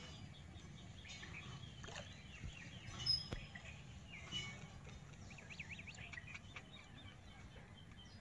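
Faint outdoor ambience with small birds chirping here and there, including a quick run of repeated chirps past the middle. A brief sharp sound about three seconds in stands out as the loudest moment.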